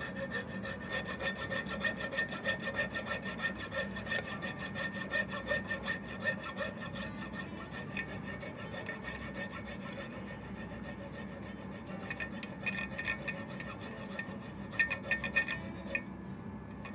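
A thin hand-held saw blade cutting through the end of a hickory axe handle and its wooden wedge with quick back-and-forth strokes. The wedge and handle top are being trimmed off flush above the axe eye. The sawing stops about a second before the end.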